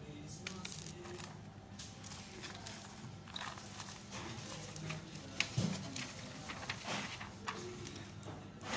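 Pages of spiral-bound printed booklets being turned and handled: irregular paper rustles and light knocks, the sharpest knocks a little past the middle.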